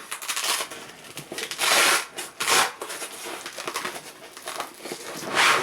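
Rustling and scraping of a rucksack's fabric and a plastic plate as the plate is pulled out from a pocket, in a few louder noisy bursts.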